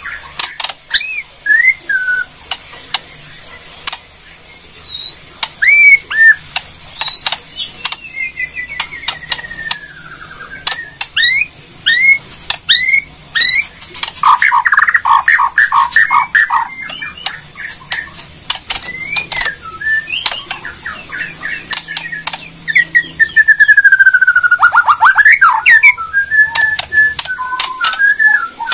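Bornean white-rumped shama (murai batu) singing: varied whistled glides and sweeping notes mixed with sharp clicks, with fast rattling runs (the 'kretekan') about halfway through and again near the end.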